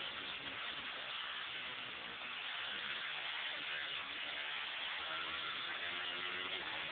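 Westfield Megablade sprint car running flat out, its Honda CBR1000RR inline-four motorcycle engine heard from the open cockpit under heavy wind and road noise. The engine note shifts in pitch as the car goes through the bend and onto the straight.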